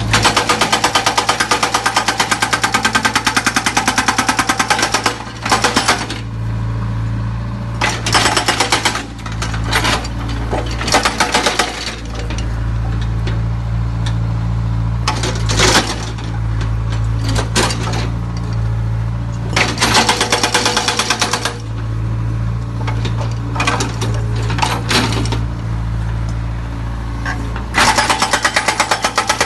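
Backhoe loader's diesel engine running steadily, with repeated bursts of rapid mechanical hammering, each lasting from about a second to several seconds. The longest bursts come at the start and near the end.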